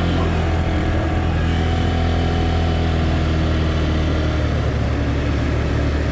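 Grizzly 200cc ATV engine running steadily, an even engine note with no let-up.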